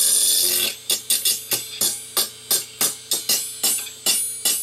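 Scissor blade scraping the spinning platter of an opened 1997 Fujitsu 2.4 GB hard drive: a loud, steady metallic screech that breaks up about a second in into a rapid, uneven series of scraping strokes, about three a second.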